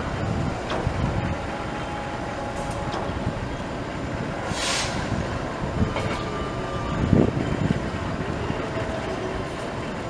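Diesel locomotive running steadily as it is slowly turned on a turntable, with a short hiss about halfway through and a low thump a couple of seconds later.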